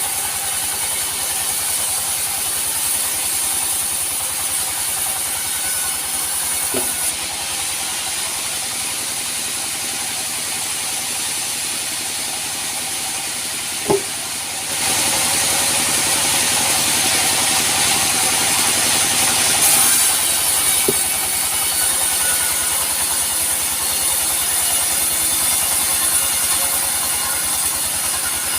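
Sawmill machinery running steadily, with a high steady whine, growing louder and hissier about halfway through, as when the saw is cutting teak. A few short sharp clicks come at intervals.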